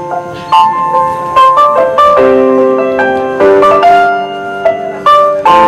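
Dance backing music: sustained keyboard-like notes and chords, punctuated by several sharp percussive hits.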